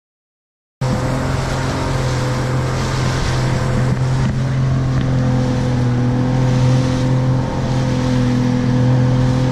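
Suzuki DT65 two-stroke outboard on a RIB running steadily at low speed, a constant drone with a hiss of wind and water over it. It cuts in abruptly about a second in.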